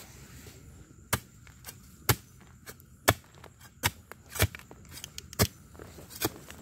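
Metal digging tool chopping into stony soil to dig out termite mushrooms: about seven sharp strikes roughly a second apart, with lighter scrapes and ticks between them.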